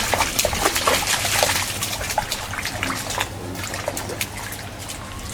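Fish thrashing and jumping at the water's surface: a rapid patter of small splashes and slaps, thickest over the first three seconds and thinning out after.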